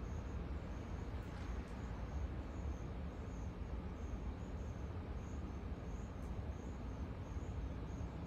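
Insects chirping outdoors in short, high pulses, about two a second, over a steady low background rumble.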